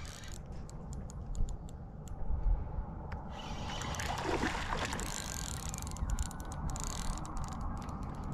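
A fishing reel being cranked, giving runs of quick ratcheting clicks, with a brief swish about four seconds in; the clicking starts again near the end.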